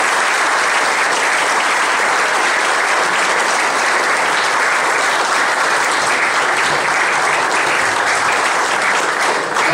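Audience applauding steadily, the clapping easing off right at the end.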